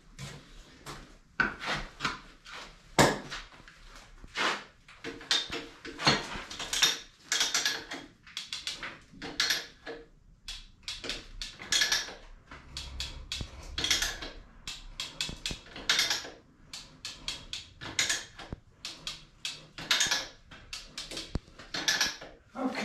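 Hand chain puller being ratcheted to drag a roughly 3,500 lb lathe a few inches: an irregular run of sharp metal clicks and clacks, about one or two a second, with a short pause partway through.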